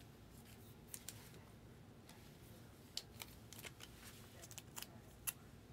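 Faint, scattered light clicks and plastic rustles of a trading card being handled and slid into a rigid plastic top loader.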